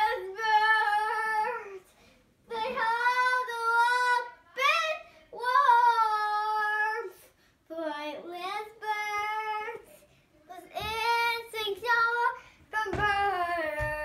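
A young girl singing unaccompanied: a string of sung phrases with long held, wavering notes and short pauses for breath between them.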